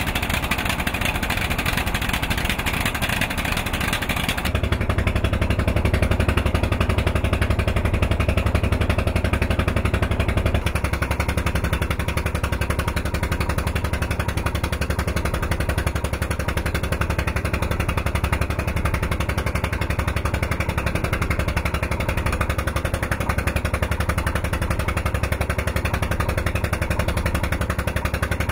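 Boat engine running steadily, with a low rapid pulse under the rush of wind and water. The sound shifts abruptly about four seconds in and again about ten seconds in; the hiss drops away and the engine rumble comes to the fore.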